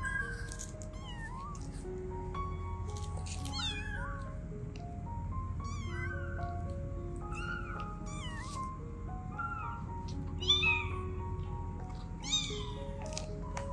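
Newborn kitten mewing again and again in short, high calls, the two loudest in the last few seconds; it is calling for its mother cat to nurse. Soft background music plays underneath.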